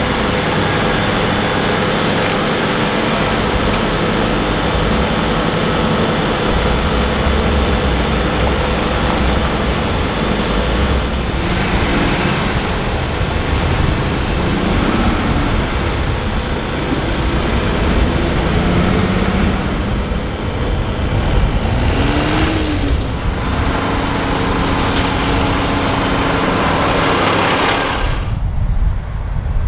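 Heavy truck and a multi-wheeled house-moving trailer passing close by, with the engine running and tyres rolling on the road. A few short bursts of hiss come through about a third of the way in and again later. Near the end the sound becomes duller and lower.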